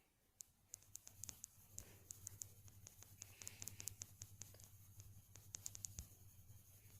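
Faint rapid, irregular clicking and scratching over a low steady hum.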